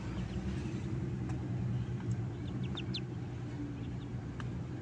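Newly hatched ducklings peeping: a few short, high peeps, several close together around the middle, over a steady low hum.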